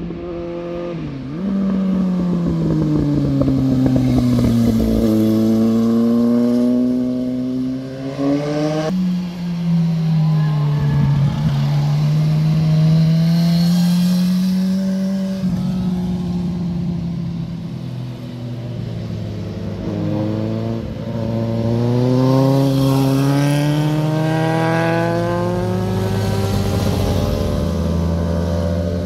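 Motorcycle engines on a run of tight bends, one bike or pair of bikes after another. Each engine's pitch falls as the rider rolls off for a turn, then climbs again as he accelerates out. The sound breaks off and starts afresh several times as one pass gives way to the next.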